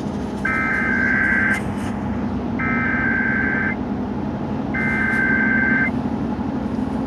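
Emergency Alert System data header: three identical buzzy electronic tone bursts, each about a second long and spaced about a second apart. This signals that a weather warning is about to be announced.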